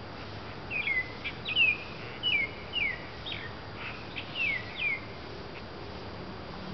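A songbird singing loudly: a run of about eight short, sharp whistled notes, each sweeping down in pitch, spread over about four seconds, with a steady background hiss.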